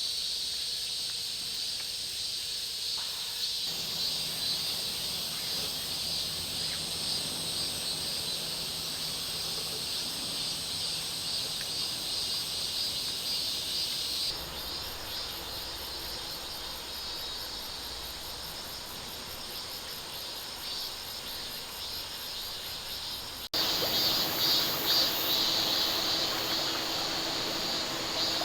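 Insects chirping in a steady summer chorus of rapid, pulsing high chirps. The sound shifts abruptly a few times from one shot to the next.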